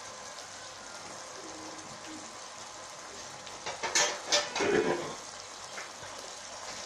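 Onion-and-spice masala frying in oil and ghee in a pot, a steady sizzle. About four seconds in, a wooden spoon knocks twice against the pot and scrapes as it stirs the masala.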